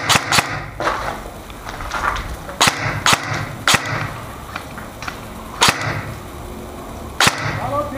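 Airsoft guns firing single shots: sharp cracks at irregular intervals, a quick cluster at the start and then single shots every second or two.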